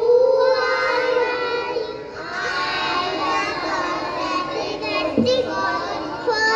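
A group of young children singing together in chorus, picked up through stage microphones, with a brief break about two seconds in.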